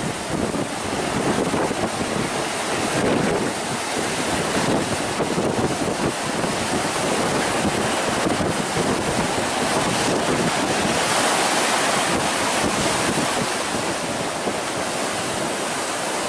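Hurricane-driven Atlantic surf breaking in a steady rush, with strong wind buffeting the microphone.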